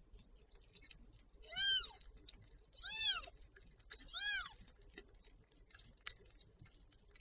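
Newborn kittens mewing: three short, high-pitched mews about a second and a half apart, each rising then falling in pitch, the middle one loudest.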